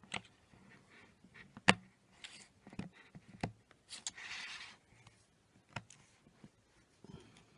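Sharp clicks and taps as an iPhone 6 Plus screen assembly is pressed and handled back into its frame, spaced a second or so apart, the loudest about a second and a half in. A short hiss comes about four seconds in.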